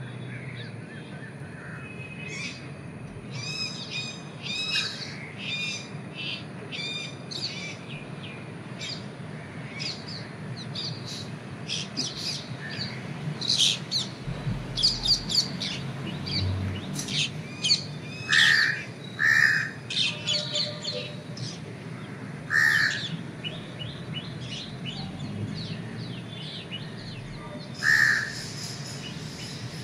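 Birds chirping and twittering over a steady background hum, with four louder short calls in the second half.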